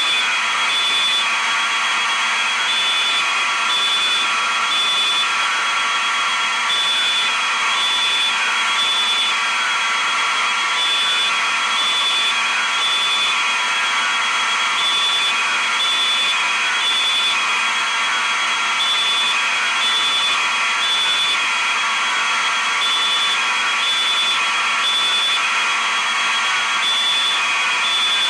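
Fire alarm sounding continuously and loudly: a high-pitched tone beeping on and off over a dense, steady ringing with repeated falling sweeps underneath.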